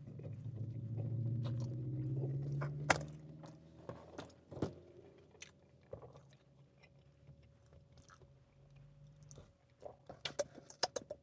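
A man chewing a mouthful of pizza with his mouth closed. A low hummed "mmm" runs through the first three seconds or so. It is followed by quieter chewing with faint crunches and a few small mouth clicks near the end.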